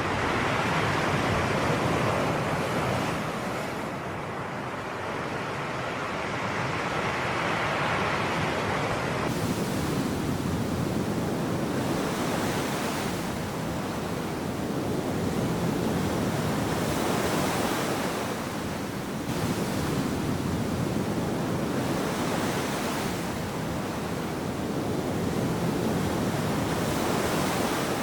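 Sea waves washing onto the shore in a continuous surf, swelling and easing every several seconds.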